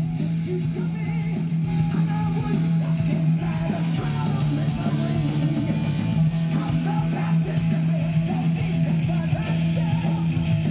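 Guitar-led rock music playing from a vinyl record through a Kenwood KR-4070 stereo receiver and its speakers, with a steady low tone running under it.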